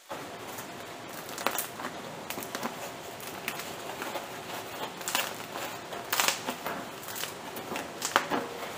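Crisp crust of a wheat sourdough loaf crackling as hands squeeze it: a run of irregular small crackles and snaps, with a few louder clusters.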